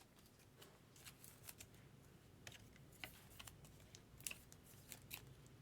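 Faint, scattered clicks and rustles of baseball trading cards being handled, a dozen or so short crisp sounds spread through the stretch.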